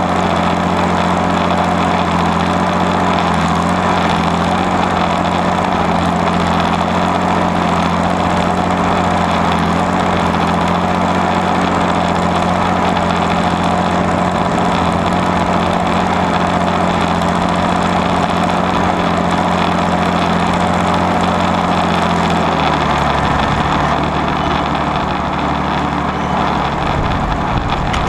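Allis-Chalmers WD45 tractor's six-cylinder diesel engine running steadily under load while pulling a rollover plow. About five seconds before the end its speed drops as the plow is lifted out of the ground.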